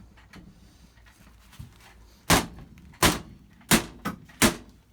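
Sharp blows knocking apart a popup camper's built-in bench during demolition. About five loud, separate strikes start a little over two seconds in, roughly one every two-thirds of a second.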